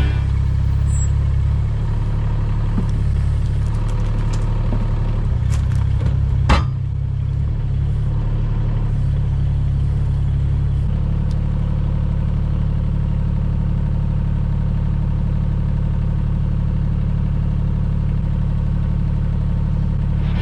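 Mini excavator's diesel engine running steadily, with one sharp knock about six and a half seconds in.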